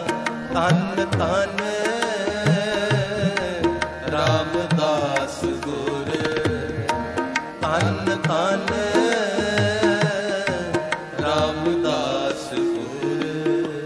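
Shabad kirtan, Sikh devotional music: a wavering, ornamented melody over steady tabla strokes.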